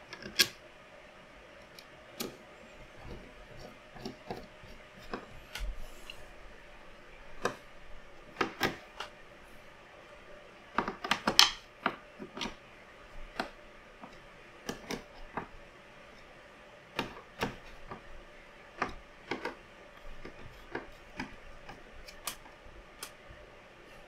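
Irregular small clicks and taps of computer parts and hardware being handled and fitted into a PC case during assembly, with a cluster of louder clicks about eleven seconds in, over a faint steady hum.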